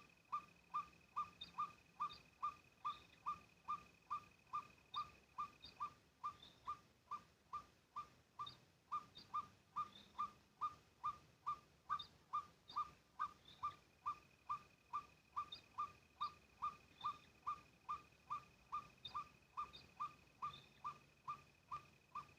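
A bird-like call note repeated evenly and rapidly, about two and a half short falling whistles a second, with no break. Behind it is a steady thin high tone that drops out for a few seconds midway.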